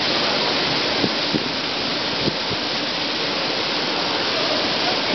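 Steady splashing of a plaza fountain's water jets, with a few short knocks in the first half.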